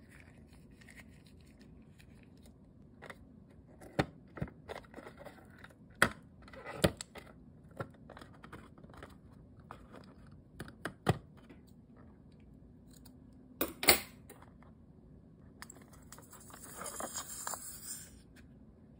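Hands handling a rubber balloon filled with slime: scattered small snaps and clicks of the rubber being stretched and worked, two louder snaps about two thirds of the way through, and a brief scratchy rustle near the end.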